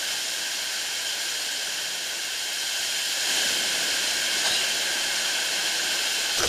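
Seawater from storm waves rushing across a pier and spraying over the camera, a steady hiss that grows a little louder about three seconds in.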